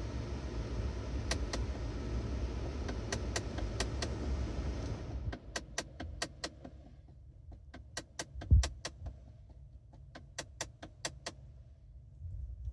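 Intermittent clicking from behind the dashboard of a 2015 petrol Kia Carnival with the AC on: sharp clicks in quick runs of several a second, with pauses between the runs. A steady air-blower rush cuts off about five seconds in while the clicking carries on, and there is a single low thump partway through.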